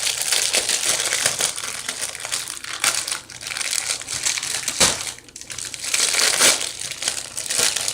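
Crinkly packaging crackling and rustling as it is handled, with a few sharper crackles.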